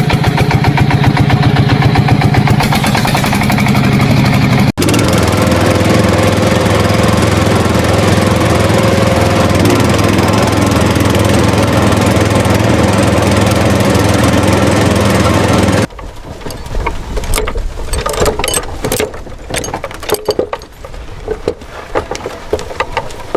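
Small motor of a DIY miniature borewell drilling machine running steadily at one pitch, with a brief break about five seconds in. It cuts off abruptly about sixteen seconds in, and after that there are scattered knocks and clatter.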